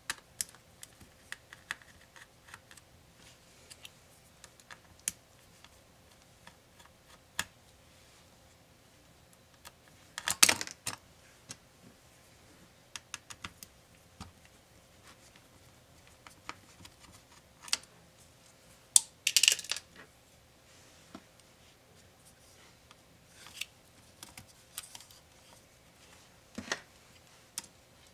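Small clicks and taps of hands and hand tools handling the internal parts of an opened laptop around its cooling assembly, with a louder clatter of handled parts about ten seconds in and again about nineteen seconds in.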